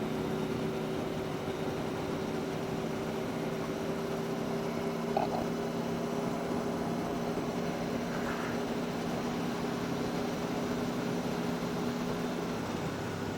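Aprilia Tuono V4 1100 RR's V4 engine running at a steady speed while cruising, a constant engine drone under wind rush. A short tick about five seconds in.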